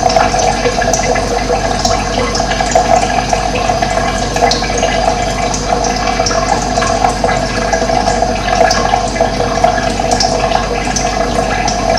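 Steady running water, rushing continuously, with short high bird chirps scattered over it.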